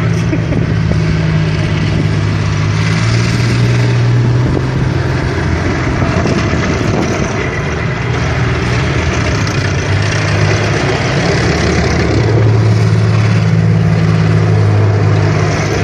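Diesel engine of an OT-90 tracked armoured personnel carrier running under load as it drives round in circles on loose ground, the engine note stepping up and down several times.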